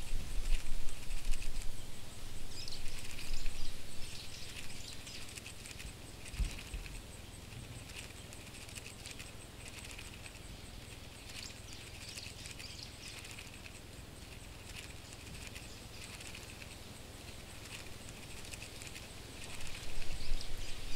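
Dry scratchy rustling with scattered light ticks: a cockroach-scuttling sound effect. It is louder with low thumps for the first few seconds, fainter through the middle, and picks up again near the end.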